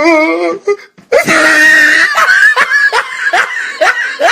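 A meme sound-effect clip: a drawn-out wavering wail trails off, then a loud scream breaks into a run of short, rapid bursts of laughter.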